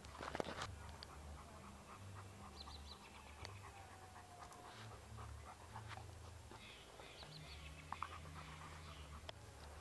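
A dog panting, faint, with a few faint high chirps in the background.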